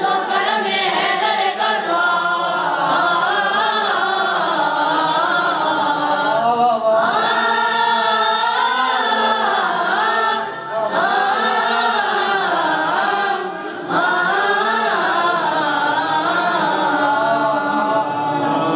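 A choir of boys singing a devotional song together, with two short breaks between phrases.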